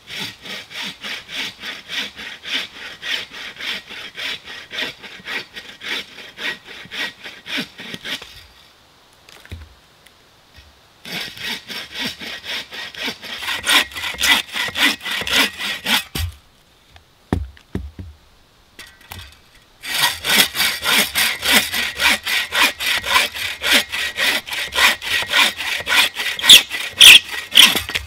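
Folding bucksaw cutting a dead branch into stove-length firewood, in quick back-and-forth rasping strokes of about two to three a second. The sawing comes in three bouts, with short pauses about eight and sixteen seconds in and a few knocks in the second pause.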